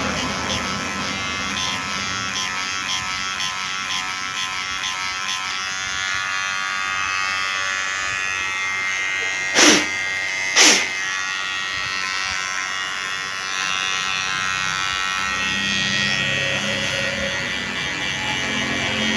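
KIKI cordless hair clipper running with a steady buzz, its freshly sharpened blades being tested. About halfway through, two short loud bursts of noise come about a second apart.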